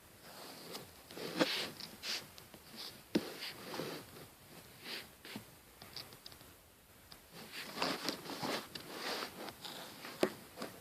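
A sleeping woman snoring: rasping, noisy breaths that come in clusters about six seconds apart, with a few short sharp clicks between them.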